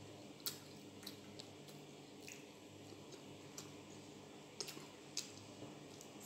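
Faint eating sounds from chicken biryani being chewed: wet mouth clicks and smacks, about eight scattered sharp ones, over a low steady hum.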